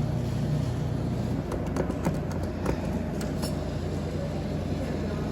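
Claw machine running during a play: a steady low hum with a few light clicks and knocks scattered through the middle.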